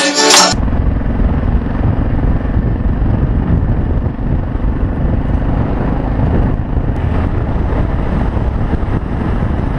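Adventure motorcycle riding along a gravel road, heard from a bike-mounted camera: a steady, dense low rumble of wind buffeting the microphone over the engine. Street music with accordion cuts off about half a second in.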